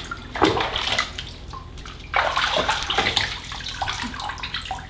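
Bathwater splashing and sloshing in a tub as a Labrador puppy scrambles in it and is held up and washed by hand. There are sharper splashes about half a second and two seconds in.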